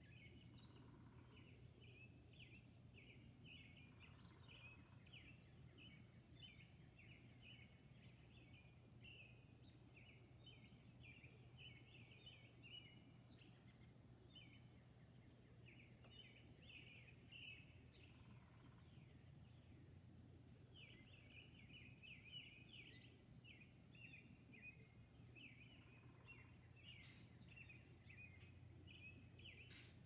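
Faint dawn chorus of songbirds: a near-continuous twittering of short, high chirps, with a few short lower calls now and then, over a steady low hum.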